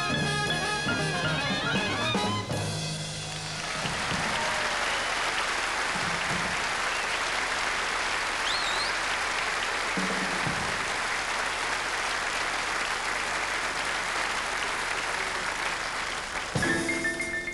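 A traditional jazz band led by trumpet finishes a number with a few seconds of playing, then an audience applauds for about twelve seconds. Near the end the band starts up again with drums and bass.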